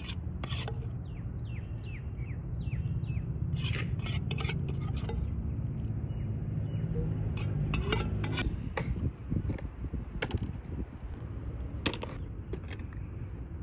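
Scraping, rubbing and clinking of kitchen utensils against a pan or dish, with sharp clicks and knocks throughout, over a steady low rumble. About a second in there is a quick run of short, high, falling chirps.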